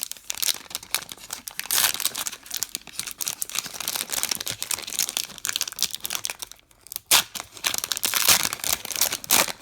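Plastic wrapper of a trading-card rack pack being torn open and crinkled by hand, a loud crackling that comes in repeated bursts, loudest about two seconds in and again in the last few seconds.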